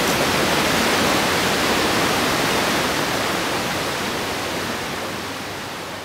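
Creek water rushing steadily over shallow rapids, fading out gradually over the second half.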